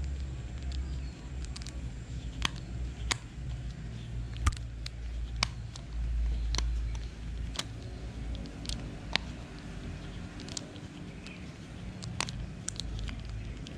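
A small screwdriver working the screws out of a Shimano Sienna 2500 FE spinning reel's body: scattered sharp little clicks of the metal tip and reel parts at irregular intervals, over a low rumble.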